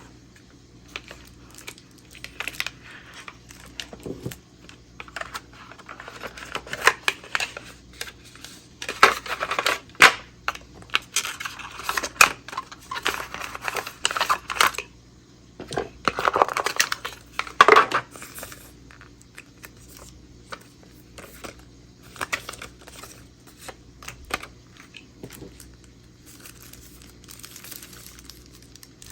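Charger packaging being handled and opened: crinkling and tearing of the wrapping, cardboard rubbing, and scattered clicks and light knocks, busiest in the middle stretch. A faint steady hum sits underneath.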